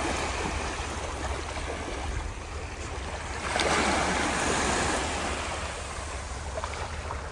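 Small waves lapping and washing on a sandy shore in shallow water, with a louder wash about three and a half seconds in.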